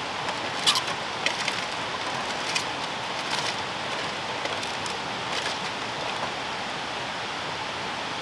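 Aluminium foil crinkling a few times as food is mixed by hand inside a foil packet, over a steady rushing background noise.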